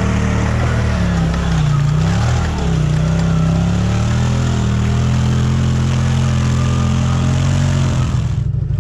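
ATV engine running under way, its revs dipping and climbing again about two seconds in, then holding steady.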